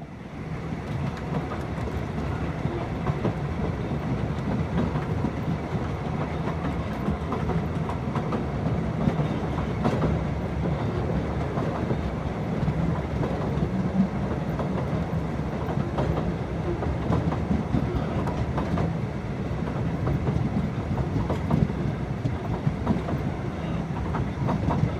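Moving passenger train: a steady rumble of wheels on the rails with scattered short clicks and knocks.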